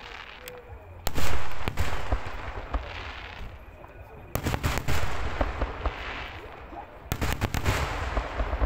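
Fireworks display: three volleys of rapid bangs about three seconds apart, each trailing off in a fading hiss.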